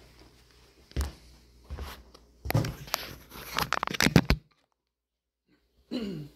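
Handling of computer parts and their packaging: scattered clicks and knocks, then a busy stretch of clicking and crinkling plastic. It cuts off suddenly near the middle, leaving silence for about a second and a half.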